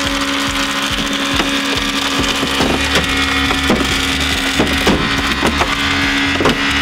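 Battery-powered hydraulic rescue spreader's motor running with a steady hum, while a minivan's sliding door is forced off its tracks. Sharp cracks and pops of straining metal and glass come at irregular moments.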